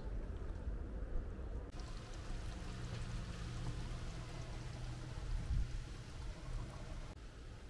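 Food cooking on a camping gas stove: a steady bubbling, sizzling hiss from a pot of spaghetti and a pan of simmering tomato and vegetable sauce, starting about two seconds in.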